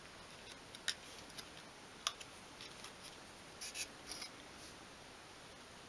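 Faint, scattered light clicks and scratches of a thin stick scraping excess glue from the joints of a small obeche strip-wood frame.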